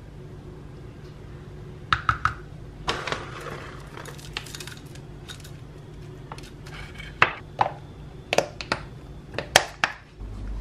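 Metal spoon clinking and scraping against a glass food-storage container, with a run of sharp clicks near the end as its plastic snap-on lid is pressed shut.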